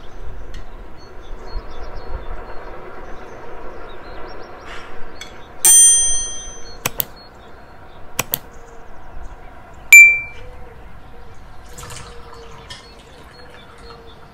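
Sound effects of an on-screen like-and-subscribe animation: a bright chime about halfway through, two sharp mouse clicks, then a single ringing bell ding about ten seconds in. Under them are soft kitchen sounds of a knife and a porcelain plate.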